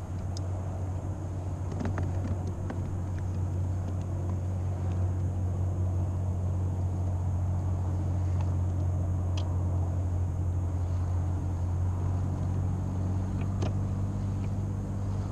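A steady low mechanical hum, growing slightly louder, with a few faint clicks over it.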